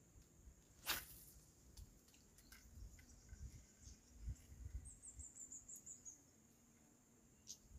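Near silence with a faint, steady high-pitched insect drone. A single sharp click about a second in, and a quick falling run of about eight high chirps around five seconds in.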